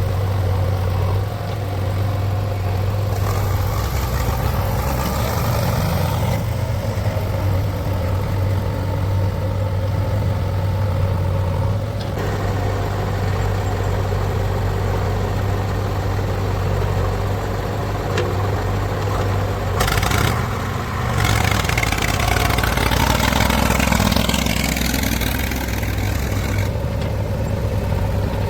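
Diesel engine of a JCB 3DX backhoe loader running steadily while it works, its sound shifting abruptly several times.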